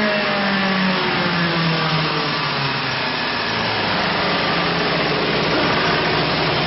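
Small wood shaving machine running steadily, with a dense hiss over a hum. The hum's pitch falls over the first three seconds, then holds level.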